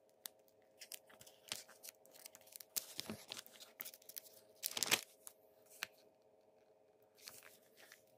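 Faint rustling and scattered clicks, busiest in the middle with the loudest rustle about five seconds in, over a low steady hum.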